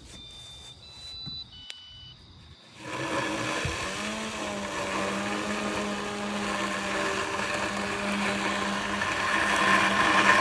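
Luba 5000 robotic lawnmower's electric motors running steadily through thick grass, coming in about three seconds in with a steady hum. A few short high beeps sound in the first two seconds.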